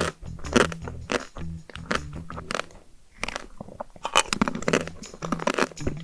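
Close-miked crunching and chewing of a crunchy chocolate dessert: a run of sharp crunches with a short pause a little before the middle.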